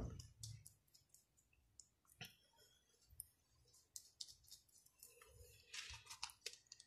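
Near silence with faint scattered clicks and soft sticky rustles, from fingers working a cream treatment mask into short hair.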